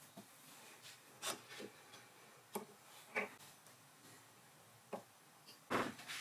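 Faint, scattered clicks and small metal knocks as a dial indicator on a magnetic base is handled and set down over a cast tailstock base on the lathe bed. The loudest knock comes near the end.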